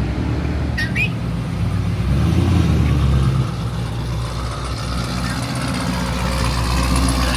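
A car engine running with a deep, steady low rumble that eases slightly about three and a half seconds in. A brief high chirp comes about a second in.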